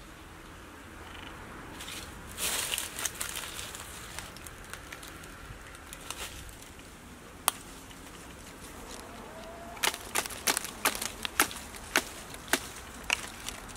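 Leafy pomelo-tree branches and dry leaves rustling as the fruit is handled and picked by hand. There is a louder rustle a couple of seconds in, a single sharp crack near the middle, and a quick run of sharp snaps and cracks in the last few seconds.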